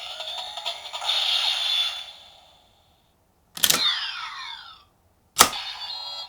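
CSM Lostdriver transformation belt playing its electronic Kamen Rider Eternal transformation sounds from its speaker: a busy synth effect fades out, then two sharp clicks, each followed by gliding electronic tones.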